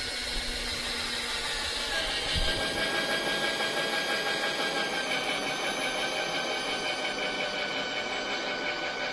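Cordless drill running steadily with a hole-saw bit cutting a sensor hole through a plastic car bumper. The motor's whine drops slightly about two seconds in as the cutter bites.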